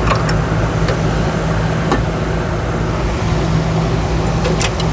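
A steady low mechanical hum, with a few light clicks and taps as an A/C line fitting is pushed and wiggled into its port.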